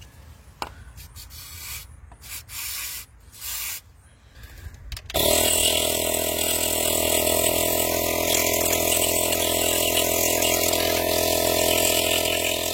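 Small air compressor switched on about five seconds in and running steadily, a motor hum with a strong hiss of air, used to blow out bolt holes. Before it starts, a couple of short hissing bursts and light knocks.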